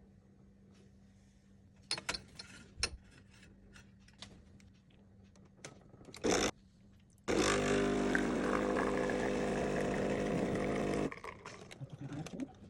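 Klaz home espresso machine's pump running with a steady buzz for about four seconds, starting and stopping abruptly, as it pushes water through for a shot. A few light clicks and knocks come before it.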